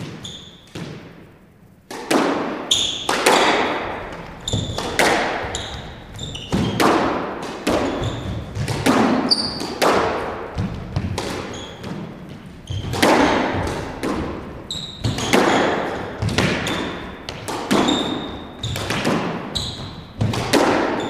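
A squash rally: the rubber ball cracks off the rackets and smacks the front and side walls and the floor, each hit ringing briefly in the hollow court. There is a first shot at the start, then from about two seconds in a fast, uneven string of hits. Short squeaks from court shoes on the hardwood floor sound between the shots.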